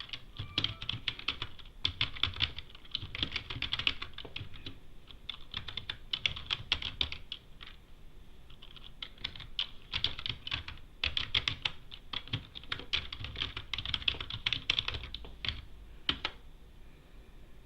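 Computer keyboard typing in quick runs of keystrokes with short pauses, the bursts of a command being entered, thinning to a few clicks near the end.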